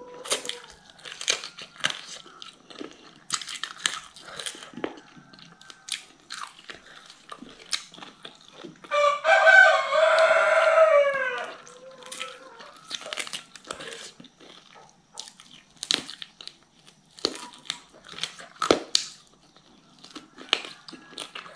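Close-up eating sounds: crunching, biting and chewing on boiled chicken pieces and bones, with many short wet mouth clicks. About nine seconds in, a rooster crows once for nearly three seconds, the loudest sound, its call falling at the end.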